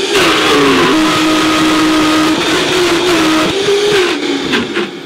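High-speed blender grinding almonds and coconut oil into almond butter, with a tamper pressed down through the lid. The motor runs loud, its pitch sagging under the thick paste and wavering as it works, then dropping and winding down near the end.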